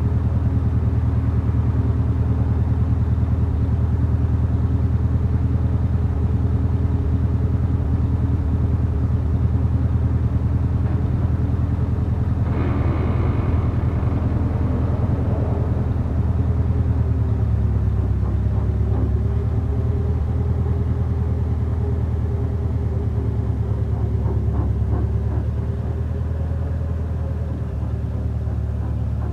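1936 Ford truck's flathead V8 running steadily just after starting, with a short rough burst of noise about halfway through; the note shifts slightly later as the truck drives slowly forward.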